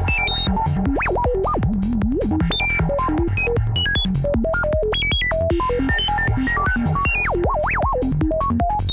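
Software modular synth (Cherry Audio Voltage Modular Nucleus) playing random sine-wave bleeps: a clocked sample-and-hold throws the oscillator to a new random pitch about four times a second, and glide turns some steps into swooping slides, the random 'foresty' bleeps of forest psytrance. A steady low electronic pulse runs underneath.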